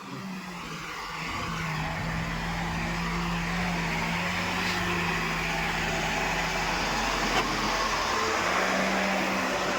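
Heavy diesel engine running steadily under load, getting louder about a second in.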